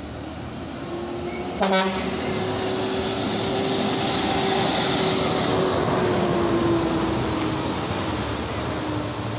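Intercity bus driving past, its engine sound swelling and then easing off, with a steady whine that slowly drops in pitch. A single short horn toot sounds about a second and a half in.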